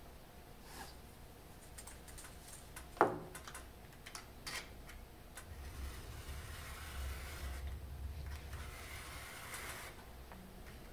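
A knife blade drawn along a steel ruler, cutting through a poster and black mounting board in two long scraping strokes of about two seconds each in the second half. Before them come a few light clicks and one sharp knock about three seconds in.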